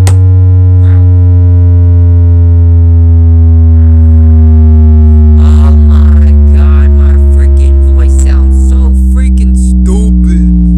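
Subwoofer playing a very loud, deep bass tone that slowly falls in pitch, with a ladder of overtones above it.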